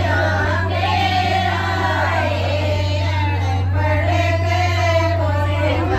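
A group of women singing a traditional Indian folk song (geet) together without a pause, the kind sung by women in the days before a family function.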